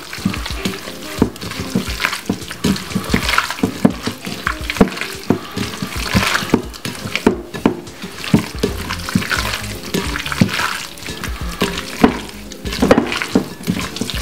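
Raw chicken being rubbed and squished together by hand with Thai red curry paste: irregular wet squelching, over background music.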